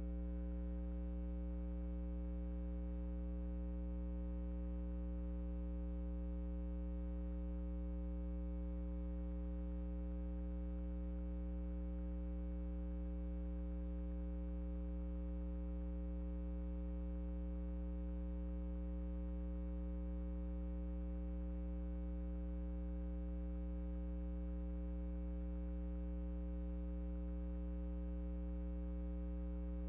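Steady electrical mains hum with a stack of overtones, unchanging and with no music or voices over it.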